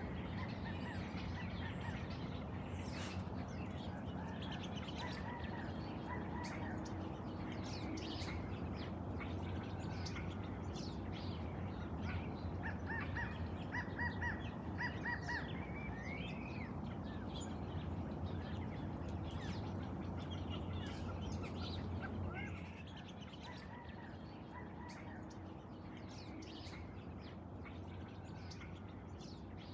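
Wild birds chirping, many short calls scattered throughout with a quick run of repeated notes near the middle, over a steady low hum that drops away about two-thirds of the way through.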